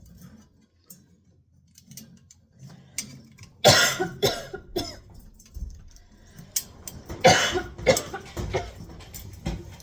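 A person coughing in two bouts, about four seconds apart, each a sharp loud cough followed by two or three weaker ones.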